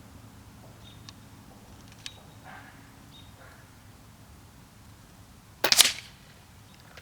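A single shot from an Air Venturi Avenger .22 PCP air rifle, a sharp crack about five and a half seconds in that dies away quickly, with a couple of faint clicks of handling before it.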